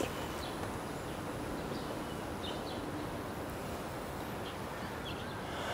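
Outdoor ambience: a steady low hiss with a few faint, short bird chirps, about two and a half seconds in and again around four and a half to five seconds.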